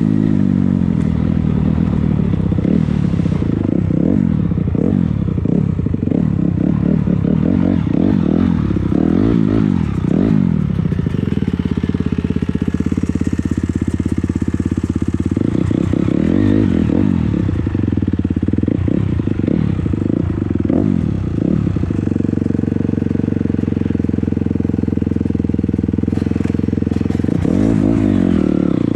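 250cc dirt bike engine being ridden off-road, revving up and down over and over with the throttle, then holding a steadier pitch for a few seconds near the end.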